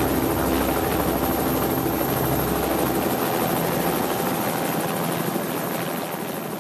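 Helicopter running close by, heard from the landing skid: a steady whir of engine and rotor blades that drops gradually in level toward the end.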